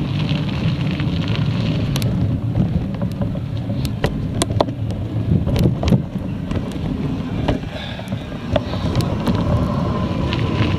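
Wind buffeting an action camera's microphone on a moving rider, a heavy low rumble, with irregular sharp clicks and knocks from jolts over the trail.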